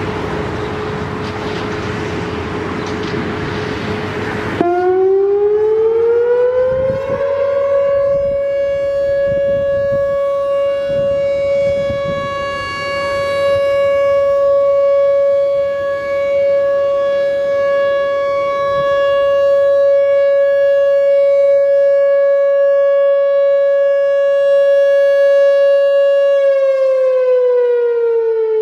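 Whelen WPS-4004 electronic outdoor warning siren sounding its steady alert tone. After about four and a half seconds of loud rushing noise, the tone starts abruptly and rises over a couple of seconds to a steady pitch of about 560 Hz. It holds for roughly twenty seconds, then winds down near the end.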